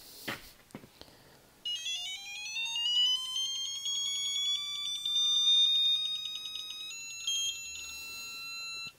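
Icon 1/2-inch digital torque wrench's alert tone as torque is applied to a 50 ft-lb setting: a rapidly pulsing beep that starts about two seconds in and rises in pitch as the torque builds. About seven seconds in it switches to a steady, higher tone as the target is reached, then cuts off near the end.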